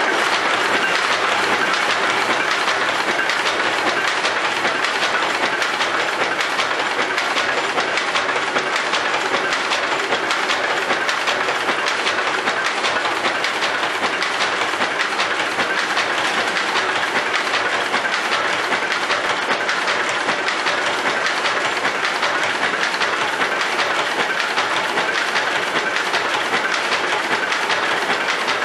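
Power loom running at full speed: a loud, dense, steady mechanical clatter of rapid beats as it weaves.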